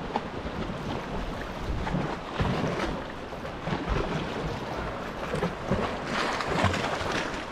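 Sea water sloshing and splashing around a sea kayak as it is paddled, in irregular splashes, with swell washing against rocks and wind buffeting the microphone.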